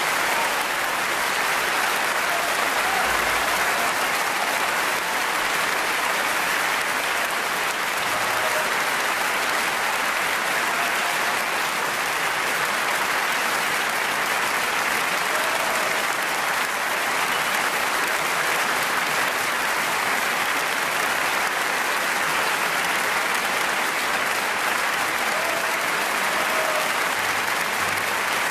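Audience applauding steadily, a long unbroken ovation.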